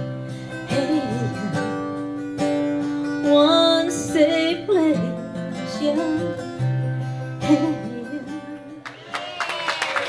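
A song with strummed acoustic guitar and a singing voice, with long held notes. Near the end the song stops and clapping begins.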